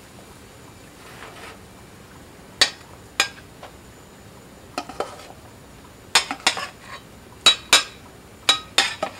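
A metal utensil clinking and tapping against cookware while a sausage patty is worked through thick pancake batter: a string of irregular sharp clinks, more frequent in the second half.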